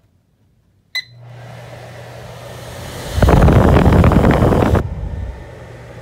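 A Maytag over-the-range microwave's keypad beeps once, about a second in, and its vent hood fan starts on high speed: a steady hum with rushing air. From about three to nearly five seconds in the air is much louder, buffeting the microphone held under the vent, then it settles back to a steady hum.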